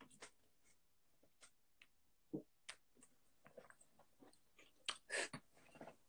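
Near silence, broken by a few faint short clicks and a brief soft noise about five seconds in.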